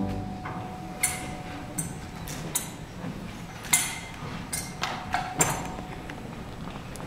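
A series of about nine sharp clicks and knocks at irregular intervals, some in close pairs, over a quiet room background. The last of a choir's sung response dies away at the start.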